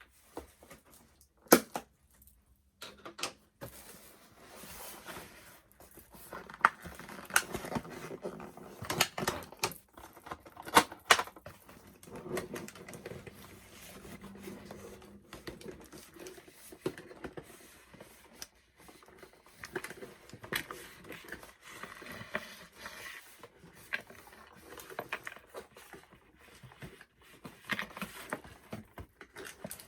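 Doll packaging being worked open by hand: irregular clicks, snaps and snips of scissors on plastic fasteners, with rustling of the box.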